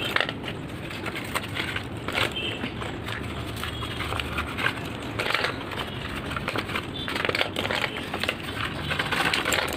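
Slate pencils being handled out of their paper packets: irregular sharp clicks and snaps as the chalky sticks knock, break and drop onto a pile in a stainless steel bowl, mixed with crackly paper rustling.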